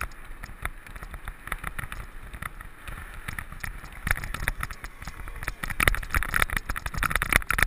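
Mountain bike ridden over rough ground: a dense run of irregular knocks and rattles over a low rumble, getting busier and louder from about four seconds in.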